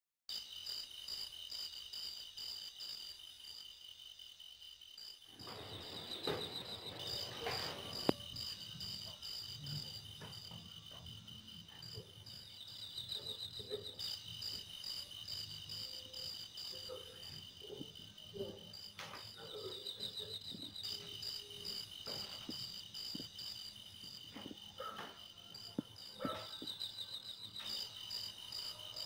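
Insect chirping, cricket-like: a steady run of rapid, high chirps. A low hum and a few sharp knocks join about five seconds in.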